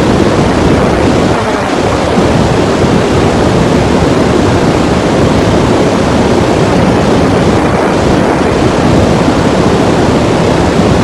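Loud, steady rushing noise: an even roar with no pitch or rhythm.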